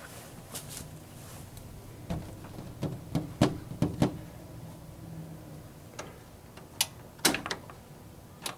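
Kittens pawing and scrambling at a glass door, knocking and rattling it against its frame in irregular sharp taps, several in a cluster about two to four seconds in and more around seven seconds in.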